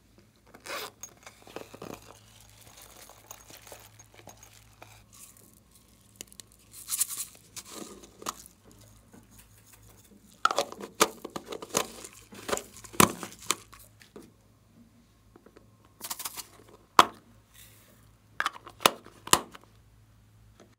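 Close handling of plastic packaging and slime add-ins: irregular crinkling, tearing and clicking sounds in bursts, with sprinkles shaken out of a clear plastic tube onto the slime.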